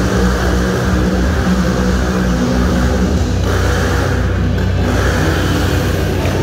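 Motorcycle engines running hard and revving inside a steel-mesh globe of death, a loud continuous engine drone.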